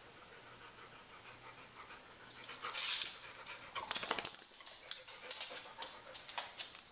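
A young Labrador retriever panting softly, then a scuffle as it gets up, followed by its claws clicking on a hardwood floor as it walks.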